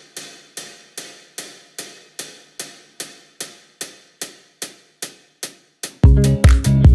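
Opening of a sped-up pop track: one sharp percussive hit repeating evenly about two and a half times a second, each dying away quickly. About six seconds in, the full beat comes in with heavy bass.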